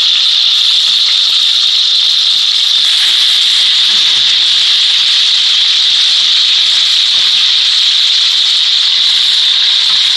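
Marinated chicken pieces searing in hot oil in a pan, with a loud, steady sizzle. It is a brief sear to seal the outside and take away the chicken's raw smell, not to cook it through.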